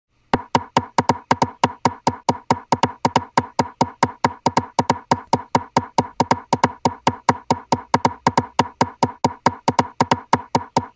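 Steady ticking click beat opening an electronic music track, about five clicks a second, starting a moment in.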